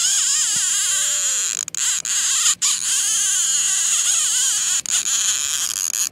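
Fishing reel's drag screaming as a hooked king salmon pulls line off, a steady high-pitched buzz with a wavering tone. It cuts out for an instant several times.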